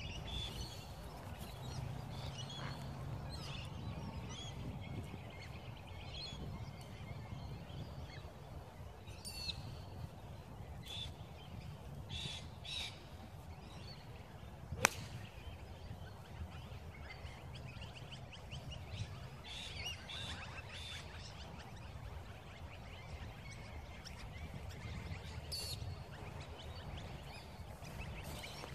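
A single sharp crack of a golf iron striking the ball on a tee shot, about halfway through, with birds calling and chirping on and off around it.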